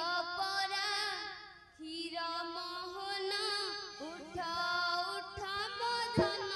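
A woman singing solo, her voice wavering and ornamented, with a short break about two seconds in and a steady held tone beneath. Drum strokes come in near the end.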